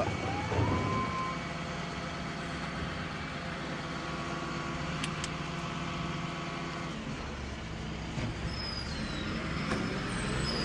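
A motor vehicle's engine running nearby: it rises in pitch in the first second, holds a steady speed, and fades out about seven seconds in.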